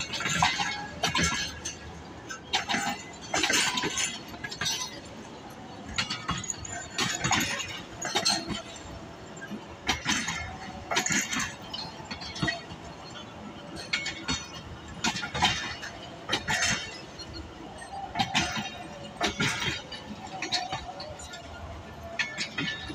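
Pakistan Railways passenger coaches rolling slowly past, their wheels clicking and clanking over rail joints in uneven clusters, with metallic clinks from the couplings and bogies.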